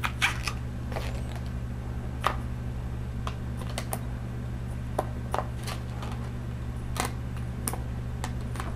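Scissors snipping the excess latex tails off tied balloon knots: scattered sharp clicks, roughly one every second or so, over a steady low electrical hum.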